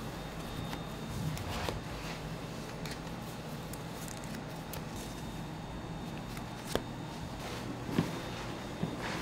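Bakery kitchen work: a few light clicks and knocks of handling over a steady low machine hum. Two sharper knocks stand out, one near seven seconds in and one about a second later.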